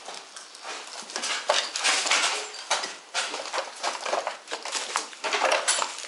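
Footsteps crunching in a slow walking rhythm, about two steps a second.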